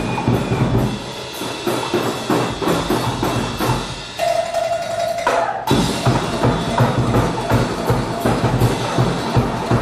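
Drum kit and percussion playing a fast, steady beat. A single held note sounds for about a second around four seconds in, and the beat drops out briefly just after five seconds before coming back in.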